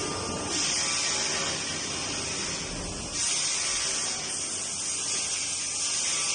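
CNC machine cutting aluminium alloy: a steady, high-pitched hiss that steps louder about half a second in and again about three seconds in.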